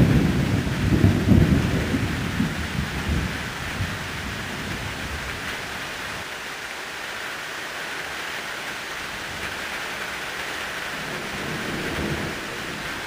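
Thunder rolling and fading over the first few seconds, with steady heavy rain hissing throughout; a fainter low rumble of thunder builds again near the end.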